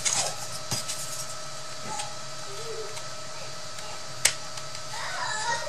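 Light clicks and taps of die-cut cardboard pieces being handled and pressed together to assemble a miniature house, with one sharp click about four seconds in, over a steady faint background hum.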